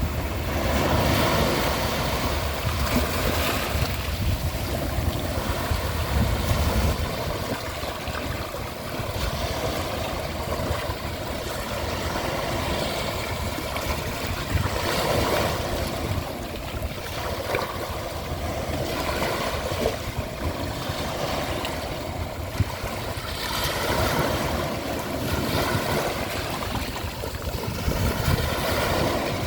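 Ocean waves breaking and washing up a shore, a steady rush that swells and ebbs every few seconds, with low wind rumble on the microphone for the first several seconds.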